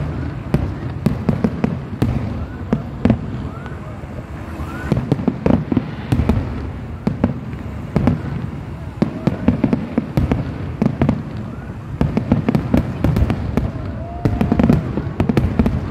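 Aerial fireworks display: many shells bursting in a quick, irregular run of bangs and crackles.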